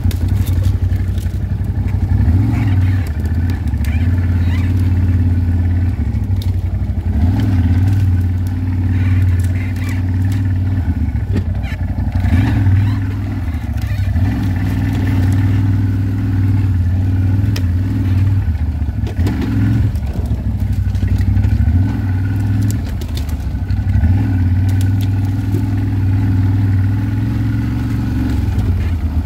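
ATV engine running steadily while riding, its drone swelling and easing a little every few seconds with the throttle, with scattered light clicks and knocks.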